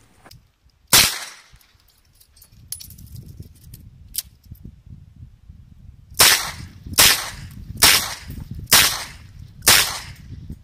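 Smith & Wesson 929 9mm revolver firing. There is a single shot about a second in, then a steady string of five shots a little under a second apart from just past the middle.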